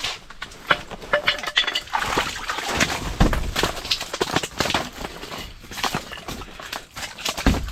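Rapid, irregular clicking and knocking of ice-fishing tackle being worked at the hole, with heavier thumps about three seconds in and again near the end.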